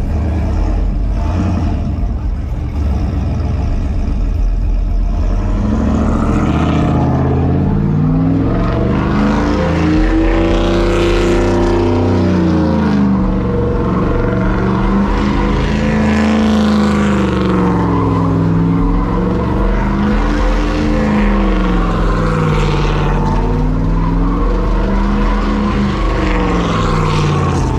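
Pickup truck's engine revving up and down hard as it spins donuts, its pitch rising and falling in waves every two to three seconds from about six seconds in, with the hiss of spinning tyres.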